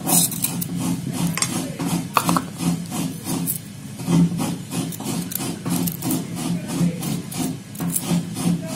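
Knife peeling garlic cloves by hand: a quick run of short scraping and rubbing strokes of the blade against the cloves and their papery skins.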